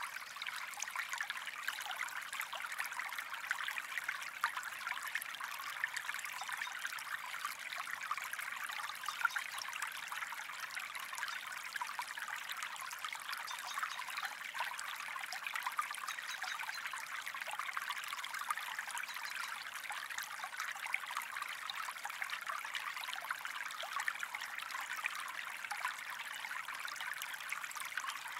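Gentle stream flowing, a steady trickling of water made up of many small splashes.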